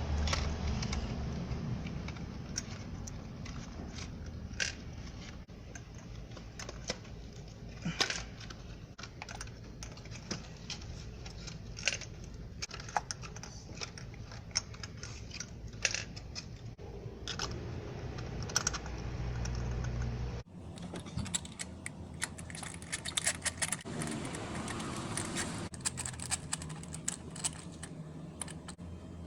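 Scattered metallic clicks and clinks of hand tools and small metal parts being handled during work on the engine's ignition coils and spark plugs, over a steady low hum that stops abruptly about two-thirds of the way through.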